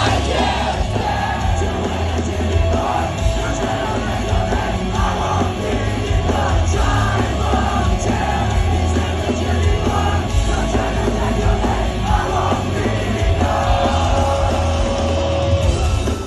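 Live rock band playing loud and heavy, with drums and bass and a vocalist shouting and singing into a microphone over the music, and crowd noise mixed in, as heard from within the audience.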